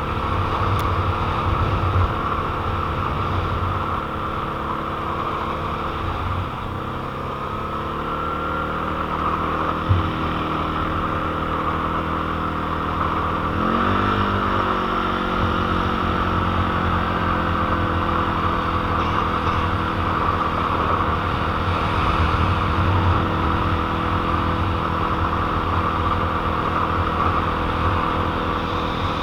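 Quad bike (ATV) engine running under way over snow. Its pitch dips about six seconds in and changes sharply again about fourteen seconds in as the throttle changes, with a brief knock near ten seconds.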